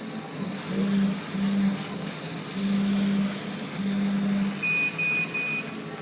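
CO2 laser cutting machine running: a steady rushing fan noise with a low hum that comes and goes four times, then three short high beeps near the end.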